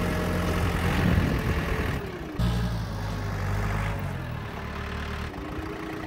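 John Deere compact tractor's diesel engine running steadily as the tractor is driven in reverse in its high C range. The engine note changes abruptly twice, a couple of seconds in and again near the end.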